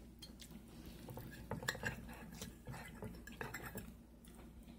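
A metal fork clinking and scraping against a dinner plate in a run of light clicks, bunched in two spells, the busiest a little before the middle.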